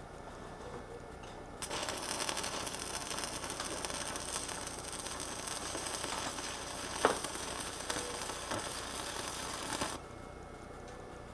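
Electric arc welding joining a stack of steel plates and files: a steady crackling sizzle starts about one and a half seconds in and cuts off abruptly near the end, with a sharp pop partway through.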